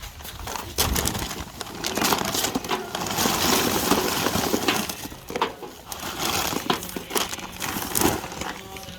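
Charcoal being poured and handled in a barbecue grill: lumps clattering and crunching against each other, with sharp clicks, loudest through the middle.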